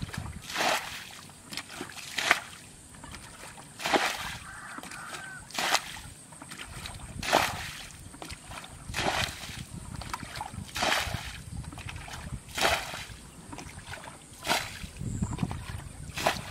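Water being bailed out of a flooded rice-field ditch with a plastic bucket: a splash of thrown water about every one and three-quarter seconds, nine times, with quieter sloshing of the bucket being filled in between.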